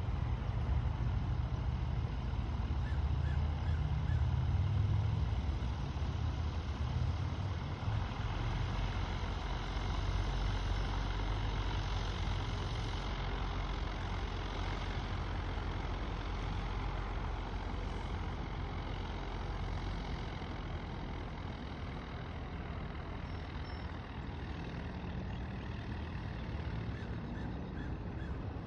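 Steady low rumble of distant engines, a little louder for the first several seconds, then even.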